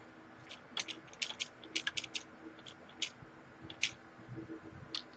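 Computer keyboard keys being pressed: a dozen or so faint, irregular clicks, the space bar paging through a licence agreement in a terminal.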